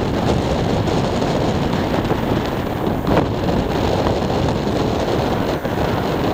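Wind buffeting the microphone over the steady rumble of a distant Dash 8 Q400 turboprop on the runway, with one stronger gust about three seconds in.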